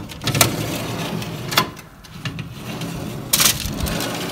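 Metal baking tray being slid out of an oven on its rack, scraping with a few sharp metallic clicks, over a steady low hum.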